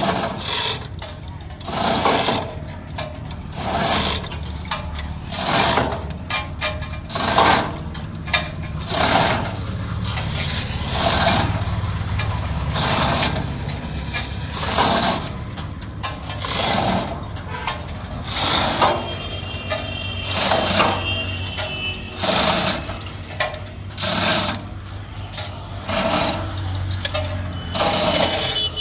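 Hand chain hoist (chain block) being worked to lift a log: its chain rattles and clanks through the block in repeated pulls about every one and a half to two seconds. A steady low hum runs underneath.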